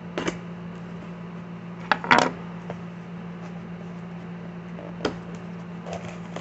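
Handling and opening a cardboard shipping box: a few sharp clicks and knocks, the loudest a double knock about two seconds in, over a steady low hum.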